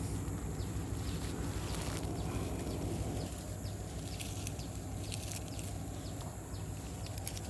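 Light rustling and small clicks as a mesh fish bag and its drawstring clip are handled, over steady background noise.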